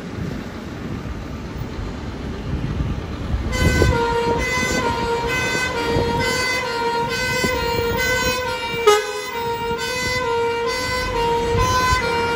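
Low engine rumble of a Scania fire engine pulling out, then about three and a half seconds in its two-tone siren starts, alternating steadily between two pitches. A brief sharp blip sounds near the middle.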